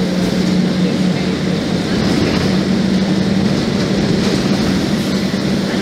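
Mercedes-Benz OF-1724 Bluetec 5 bus's diesel engine running steadily at cruise, heard from inside the cabin with road and tyre noise. The drone holds an even pitch throughout.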